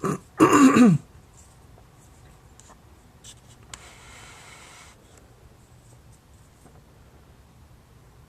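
A short vocal sound from a person, falling in pitch, within the first second, then a brief rustle about four seconds in, over faint room tone.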